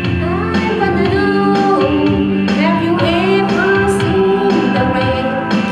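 A woman singing into a handheld microphone over a backing track, holding long notes that glide between pitches.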